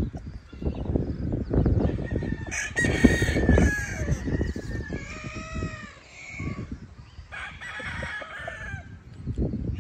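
Gamefowl roosters crowing, with three long crows about a third, half and four-fifths of the way through, and chickens clucking in between.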